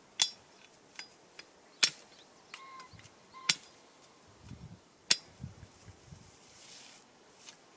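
Irregular sharp clicks and light knocks, about seven in all; the loudest come nearly two, three and a half and five seconds in. Soft low rustling comes between them.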